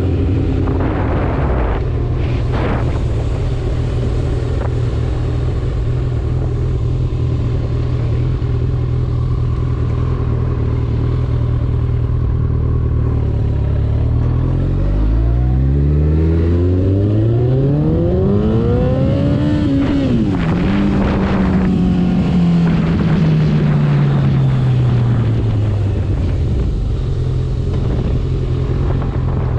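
Kawasaki ZX-14R inline-four with a Two Brothers Black Series exhaust idling steadily. About halfway through it is revved up smoothly for about six seconds, drops sharply off the peak, then winds down over several seconds and settles back to idle.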